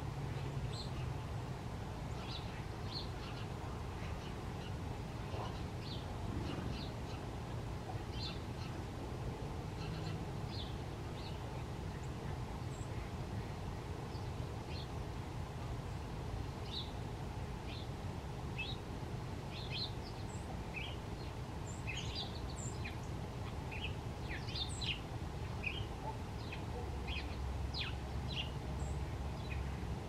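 Small songbirds giving short, high chirps and calls, scattered throughout and thicker in the second half, over a steady low background rumble.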